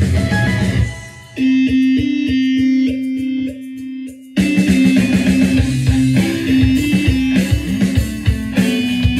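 Electric guitar instrumental break with no singing: about a second in the band drops away and the guitar plays a quick repeated note on its own, then the full band with drums comes back in just after four seconds.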